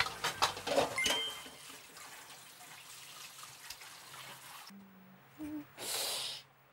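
Kitchen cooking sounds: several clinks and knocks of utensils in the first second or so, then a short rush of water near the end.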